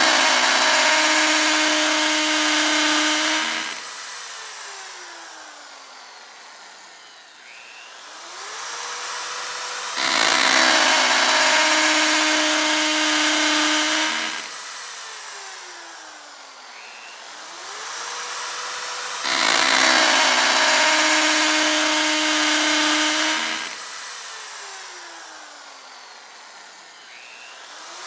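Electric drill run in the same cycle three times, about every nine and a half seconds. Its motor whines up, the drill runs loudly into material for about four seconds, then the motor winds down with a slowly falling whine.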